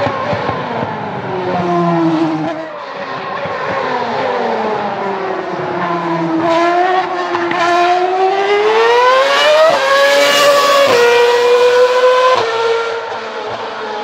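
Ferrari V8 Formula 1 car's high-revving engine. The note falls as the car slows into a corner, then climbs steadily as it accelerates out, with quick upshifts about ten, eleven and twelve seconds in. It fades as the car pulls away.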